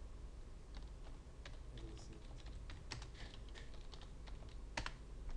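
Computer keyboard typing: irregular keystrokes with uneven gaps, one sharper stroke near the end.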